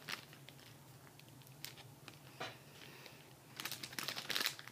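Plastic bag crinkling as it is handled, in quick crackles that start a little before the end. Before that there are only a few faint clicks.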